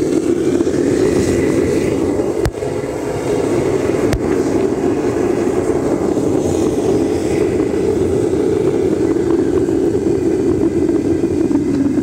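Propane burner of a home foundry furnace burning steadily at a low gas setting, a continuous low rushing flame noise as it gently warms the freshly rebuilt furnace lining. Two short knocks come a few seconds in.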